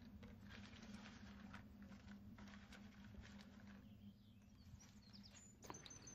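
Near silence: a faint steady low hum with a few soft ticks and rustles.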